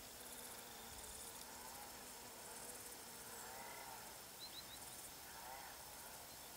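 Honeybee buzzing as it flies between flowers. The wing hum swells and fades in several passes, rising and falling in pitch.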